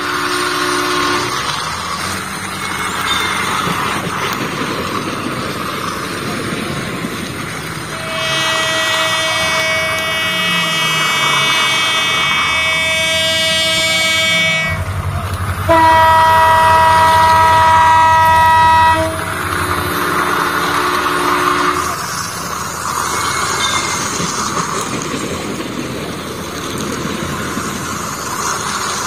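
Train sound effects over the running toy train: several held horn blasts over a steady rumble of a moving train. A short blast comes at the start, a long one in the middle, the loudest right after it, and a shorter one following.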